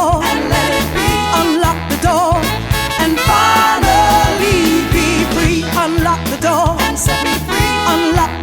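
Upbeat swing-style song playing, with a steady drum beat and a wavering melody line.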